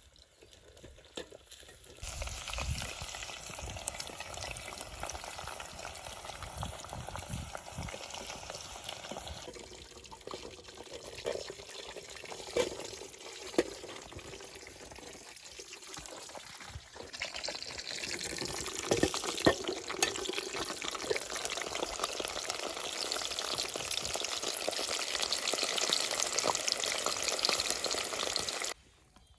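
Food frying in a kazan over a campfire: a steady sizzle with a few sharp knocks, like a utensil against the cauldron. It starts suddenly about two seconds in, changes character twice as the shots change, and cuts off abruptly near the end.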